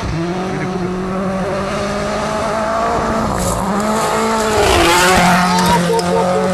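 Mini WRC rally car's turbocharged four-cylinder engine at high revs, coming closer and passing by fast on gravel, loudest about five seconds in, where it throws up a spray of gravel and its note drops in pitch as it goes past.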